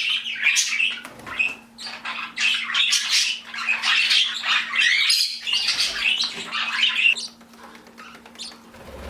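A flock of pet budgies and other small parrots chattering, chirping and squawking, thinning out about seven seconds in. A faint steady hum runs underneath.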